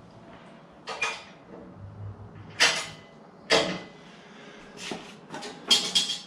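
Irregular metal clunks and knocks, about six, as a wheeled moving frame under a lathe is lifted and its wheels are set in place. A couple of the knocks ring briefly.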